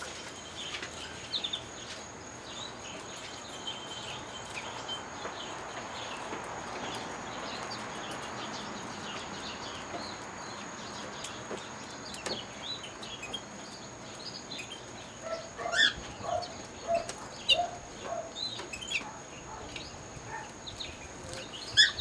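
Caged canaries chirping and singing in short scattered phrases over a steady rushing background, with a run of louder, lower calls in the second half.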